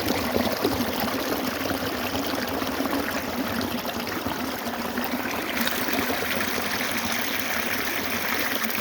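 Running water of a stream flowing and trickling, steady throughout, turning hissier about five and a half seconds in.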